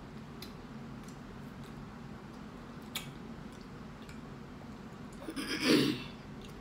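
Steady low hum of a room fan and air conditioning, with a few faint clicks from chewing, and a brief louder noise about five and a half seconds in as a small plastic cup of sauce is tipped over a burrito.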